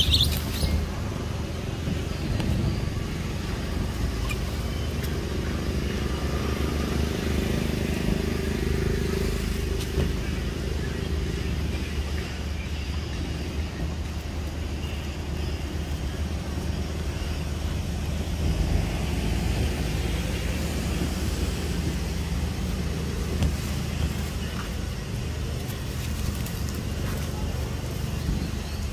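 Steady low background rumble with a brief knock right at the start.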